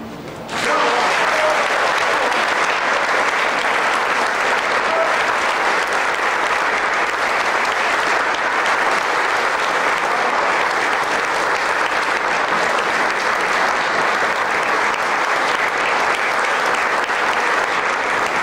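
Audience applauding: the clapping breaks out about half a second in, right after the string quartet's last notes, and goes on steadily.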